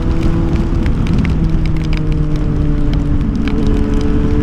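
Yamaha FZ6 Fazer's inline-four engine running at nearly steady revs while riding in rain, under a heavy rumble of wind on the microphone. Scattered sharp ticks of raindrops hitting the helmet or camera run through it.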